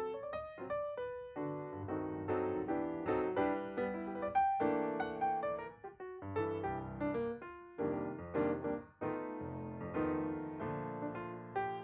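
Background music: solo piano playing a flowing melody with chords.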